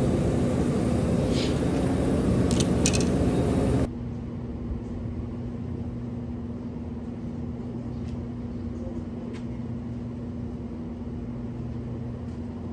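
Wind buffeting the microphone with a few sharp handling clicks, then an abrupt cut about four seconds in to a quieter, steady low mechanical hum with a constant tone.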